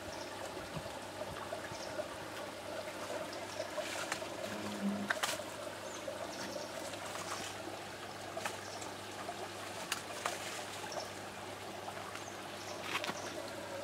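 Steady trickle of running water, with a few sharp light clicks scattered through.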